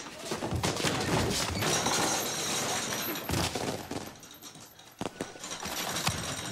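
Crashing and banging of a brawl, things being knocked about and smashed: a dense clatter of knocks for the first few seconds, then sharper single crashes about five and six seconds in.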